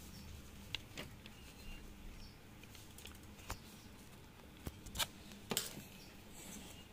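Faint handling noise from a metal TV wall-mount bracket being turned over in the hands: a handful of scattered light clicks and taps, the loudest about five seconds in.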